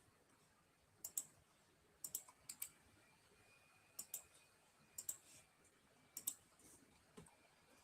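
Faint clicking on a computer, mostly quick double clicks about once a second, in near silence.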